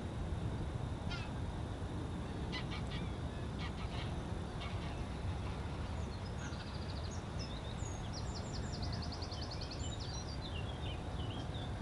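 Greylag geese honking in flight, scattered calls over the first few seconds as the skein passes, over a steady low rumble. In the second half a small bird gives high chirps and a quick trill.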